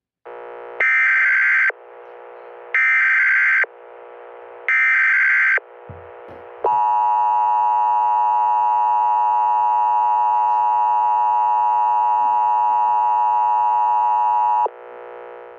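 Emergency Alert System tones: three short bursts of screeching digital data tones, about two seconds apart, over a lower steady buzz, as used to mark the end of an alert message. Then a long, steady, harsh alert tone sounds for about eight seconds and cuts off suddenly.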